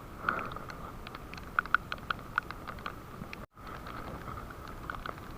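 Raindrops pattering, an irregular scatter of small sharp ticks over a steady hiss. The sound cuts out for a moment about three and a half seconds in.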